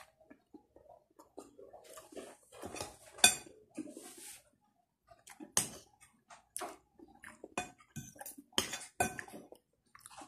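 Spoon and fork clinking and scraping against a plate during eating, in scattered short clinks, the sharpest about three seconds in.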